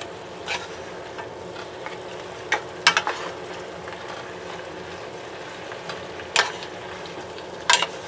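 Wooden spatula stirring and turning beef, pineapple chunks and onions in a nonstick pan, knocking against the pan several times, loudest about three seconds in and near the end, over a steady sizzle of the simmering soy-pineapple sauce.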